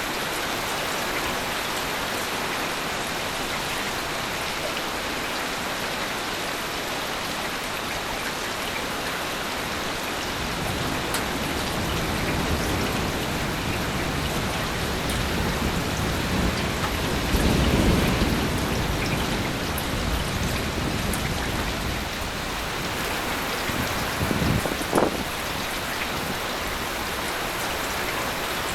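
Heavy rain falling steadily. A low rumble of thunder builds and swells to its loudest a little past halfway, and a short sharper thunderclap comes shortly before the end.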